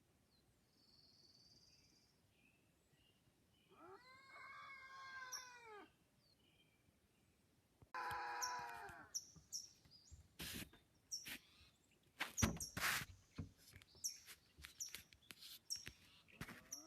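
An unidentified animal's drawn-out, wavering yowl, twice: once about four seconds in and again, shorter, about eight seconds in, painful in tone. Short high bird chirps and a run of sharp clicks follow in the second half.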